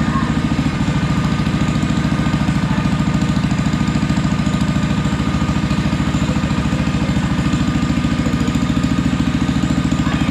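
Kohler K-series engine on a log splitter running steadily at an even speed, a rapid regular firing beat, after a no-spark fault was put right.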